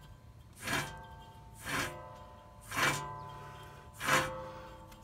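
Rear wheel hub and bearing assembly of a 2011 Ford Taurus spun by hand, four pushes about a second apart, each a rush of bearing noise that fades as the hub slows: the hub bearing is bad.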